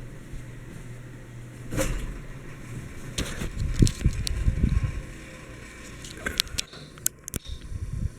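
Steady low hum of an Orient GEV ceiling fan motor, with heavy rumbling thumps about three to five seconds in and several sharp clicks near the end.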